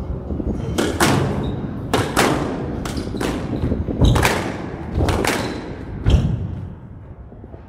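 Squash ball struck by rackets and smacking off the court walls during a rally. A sharp impact comes about every second, each with a short echo, and the hitting stops just under seven seconds in.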